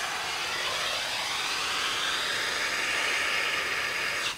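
Handheld propane torch burning with a steady hiss as its flame heats a thermite charge to ignite it; the hiss cuts off near the end.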